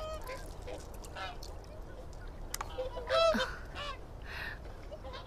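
A flock of swans honking: short, scattered calls from several birds, with the loudest call about three seconds in.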